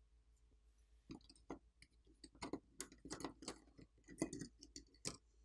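Faint, scattered small clicks and taps as the iPhone 15 Pro's motherboard and its flex cable are lifted out of the phone's metal frame. The clicks begin about a second in.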